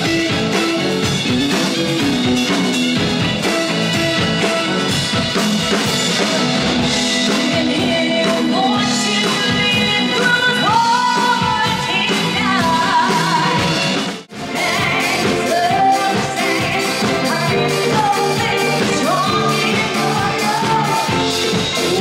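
Live band playing an upbeat song, with drums and a singer, loud and steady; the music breaks off for a moment about two-thirds of the way through and carries straight on.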